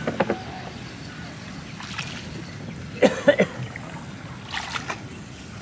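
Small wooden boat being poled through a flooded rice field: water lapping and trickling against the hull, with a cluster of short sharp sounds about three seconds in.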